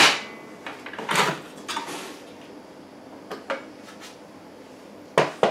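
Plastic lid of a Moulinex Companion vegetable-cutter attachment being unlocked and lifted off the steel bowl and handled, giving scattered clacks and knocks, with a louder double knock near the end.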